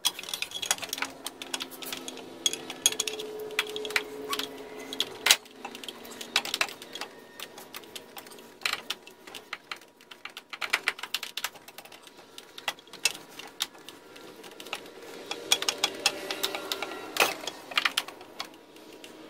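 Rapid, irregular metal clicks and knocks as an Evinrude 40 HP outboard's lower unit gear case is worked up into the exhaust housing to mate the drive shaft.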